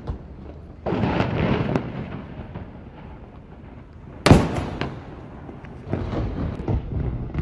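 Ship's saluting cannons firing: a boom about a second in that rumbles on, then a sharper, louder bang about four seconds in, each trailing off in a rolling echo.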